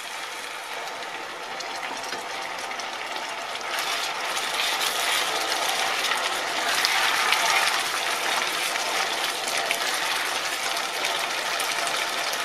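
Arborio rice frying in olive oil in a pan, sizzling and bubbling as a ladle of hot broth is added, with a spatula stirring through it. The crackle grows louder about four seconds in.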